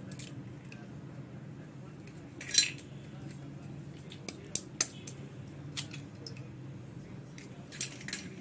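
Eggs knocked against the rim of a stainless steel bowl and cracked open: a run of sharp clicks and knocks, the loudest about two and a half seconds in, over a faint low hum.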